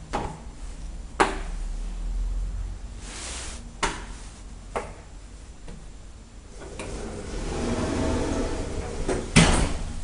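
Elevator doors and mechanism of a 1995 Otis 2000E traction elevator: sharp clunks about a second in and around four and five seconds, a short rushing noise just before, then a hum building up near the end and broken by a loud clunk.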